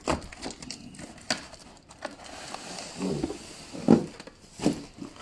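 Cardboard bicycle box and its packing being handled: rustling and scraping of cardboard, with several knocks, the loudest about four seconds in.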